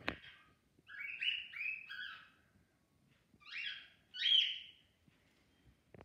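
Cockatiel singing a broken-up song: a quick run of four short whistled notes about a second in, then after a pause two louder notes, the second the loudest.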